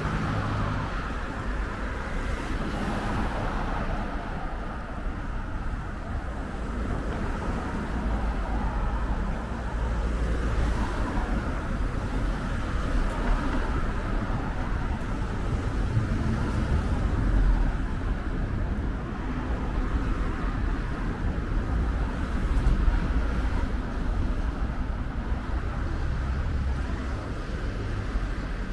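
Street traffic: cars driving past on a multi-lane city road, a steady rumble and tyre hiss that swells several times as vehicles go by.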